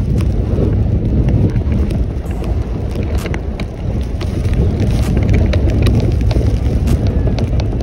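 Wind rushing over the microphone and the rumble of a snow tube sliding fast over packed snow, with scattered sharp ticks.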